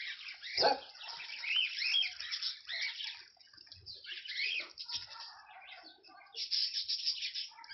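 Small birds chirping busily, many short, quick calls, with one louder sharp sound about half a second in.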